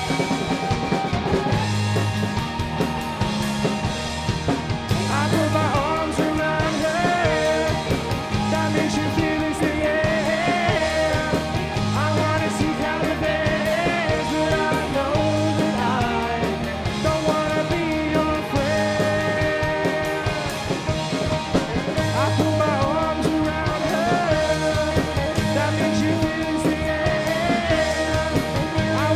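Indie rock band performing: drum kit, bass and electric guitars playing a steady, driving rock groove, with a sung vocal line.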